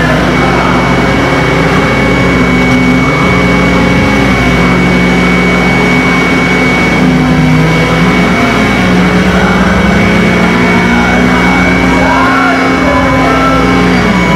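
Experimental electronic noise music: a loud, dense wash of noise over low droning tones that shift in pitch in steps, with a steady high whistle, and warbling pitch glides toward the end.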